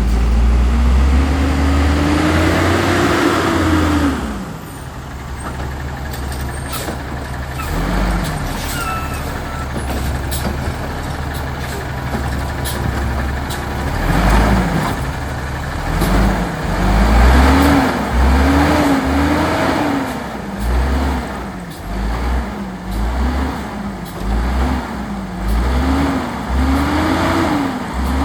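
Autocar WX refuse truck's engine revving up and dropping away about four seconds in, then running lower with scattered sharp knocks and clanks. From about halfway on, the engine revs rise and fall over and over, roughly once a second.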